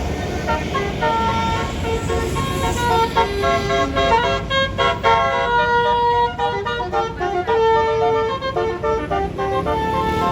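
Bus 'basuri' telolet air horn playing a tune of short and held notes, several pitches sounding together, over the low rumble of a bus engine.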